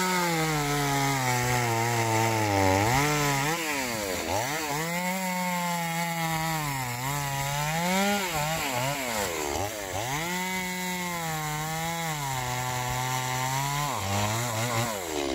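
A small engine running fast, its pitch dropping and climbing back up several times.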